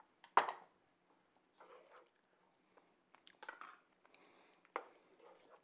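A few short scrapes and clicks, the loudest just after the start, from a wooden spoon stirring salt into a thick ground-beef and tomato meat sauce in a pan.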